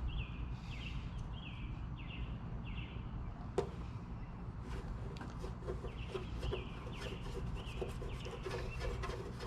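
A bird calling over and over in short, slightly falling notes, about two a second, in two runs with a pause between. A single sharp tap comes about three and a half seconds in, over a steady low hum.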